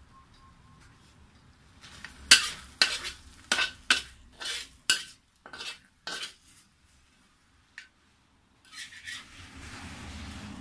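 Stainless steel spatula scraping and stirring a dried-prawn and chilli paste around a black wok: about nine quick, sharp scrapes, then a pause. Near the end comes a soft sizzling hiss of frying.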